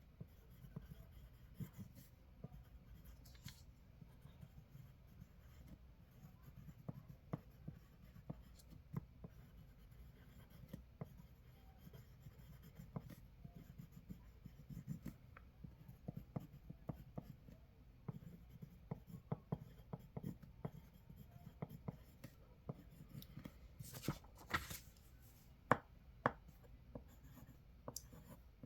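Quiet, close-miked pencil writing on paper: irregular light taps and scratches, with a couple of longer, louder scratchy strokes near the end.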